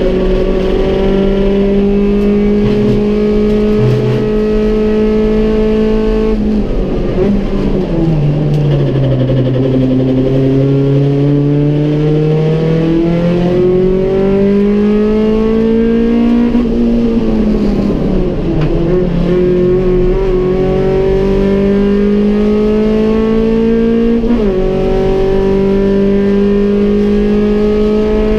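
Race-prepared Rover Metro's engine heard from inside the cabin at racing revs. The note is held high, drops steeply about six seconds in and stays low for a few seconds, then climbs again, with two shorter dips as it changes up through the gears.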